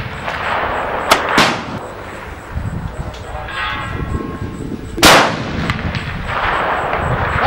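Modern inline muzzleloader rifle shots: two sharp reports close together about a second in, then a louder single report about five seconds in, each trailing off in echo.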